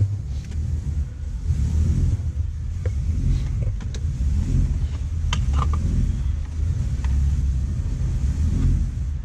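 Car engine running with a low, uneven rumble, with a few light clicks about midway.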